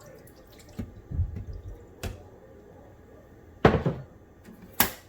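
A cup of water poured into the Keurig K-Mini's water reservoir, then a loud knock about three and a half seconds in and a sharp click near the end.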